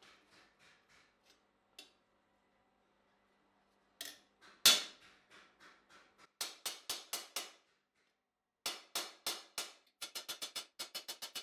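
Ball-peen hammer striking a thin steel strip on a steel post stake. Faint taps give way after a pause to heavier ringing blows in short groups, the loudest about four and a half seconds in. Near the end comes a fast run of light taps, about six a second.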